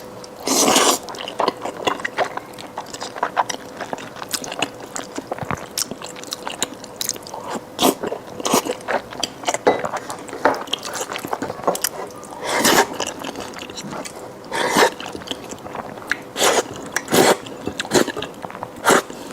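Close-up chewing and biting of braised fatty pork belly with rice: irregular wet smacks and small clicks, with occasional louder mouthfuls, over a faint steady hum.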